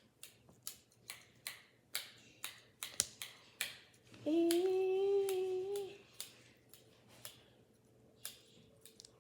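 Small sharp plastic clicks and taps, two or three a second, from handling a Popin' Cookin' candy kit's plastic tray and parts; about four seconds in, a short hummed note is held for under two seconds, and the clicks then thin out.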